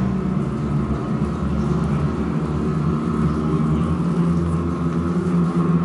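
A steady low droning hum made of several held pitches.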